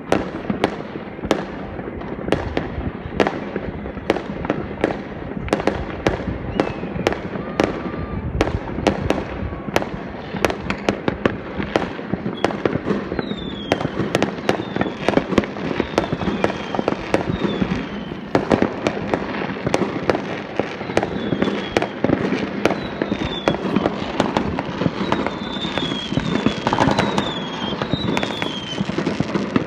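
Fireworks going off continuously, near and distant: a steady stream of sharp bangs and crackles from bursting aerial shells, with short high falling whistles repeating through the second half.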